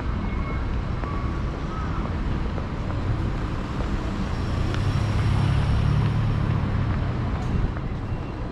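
City street traffic running steadily, with a car passing close by around the middle, its engine and tyre rumble growing to the loudest point and easing off near the end.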